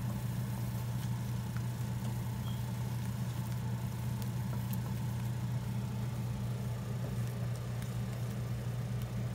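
A steady low hum, with faint scrapes and light clicks of a wooden spatula stirring thick masala paste in a stainless steel pan.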